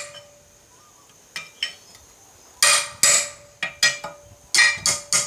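Hand hammer striking a steel punch to drive a stuck, sheared slug out of a flat-bar tong blank on the anvil: two light taps, then a quick run of about nine hard, ringing blows.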